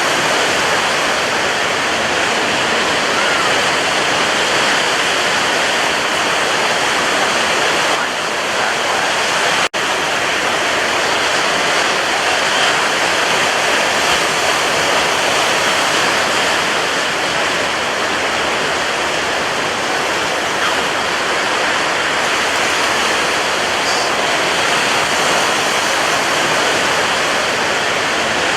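Sea surf: a steady, continuous rush of breaking waves with no distinct surges, cut by a split-second dropout about ten seconds in.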